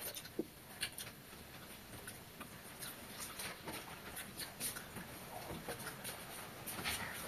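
People eating fish curry and rice by hand: wet chewing and lip-smacking with many small, irregular clicks as fingers mix food on steel plates.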